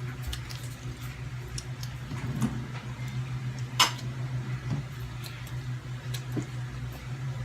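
Soft eating and handling noises, small clicks and light rustles, with one sharp click just under four seconds in, over a steady low hum.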